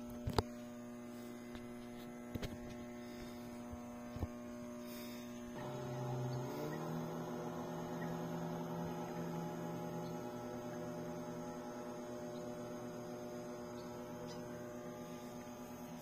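A steady, even-pitched hum. About five and a half seconds in, a second lower hum joins, slides up in pitch, then holds steady and slowly fades.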